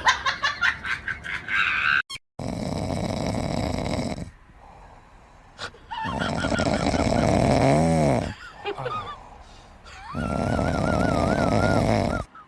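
A pet snoring loudly: three long, rasping snores about four seconds apart, the last with a wavering whistle in it. They follow a brief burst of rapid sound effects.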